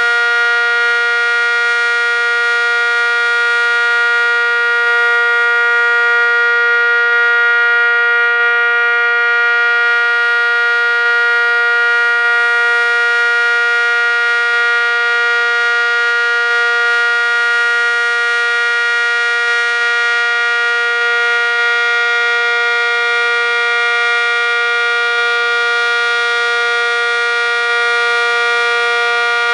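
ACA Cyclone dual-tone outdoor warning siren, its top lid missing, sounding a loud steady two-note chord at full pitch with no rise or fall.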